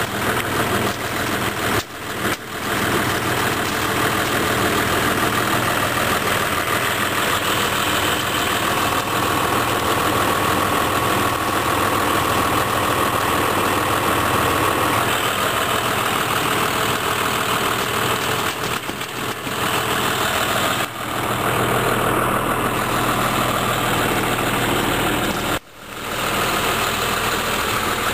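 Engine of a snowmobile-trail grooming machine running steadily, with a short sharp dip in level near the end.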